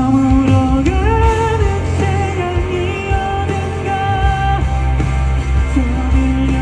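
Live pop-rock band playing a song: a held melody line that slides between notes, over a steady, heavy low end.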